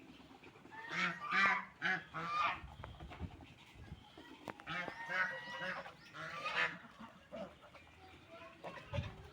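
Ducks quacking in two bouts of several nasal, honking calls: one about a second in, the other from about four and a half to six and a half seconds.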